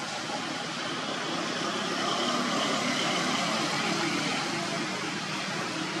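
Steady outdoor background noise, a continuous even hiss that swells slightly in the middle, with no distinct animal calls.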